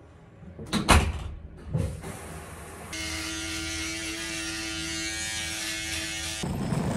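Two sharp knocks of a bathroom door about a second in, then an electric shaver buzzing at a steady pitch for about three and a half seconds, stopping suddenly near the end.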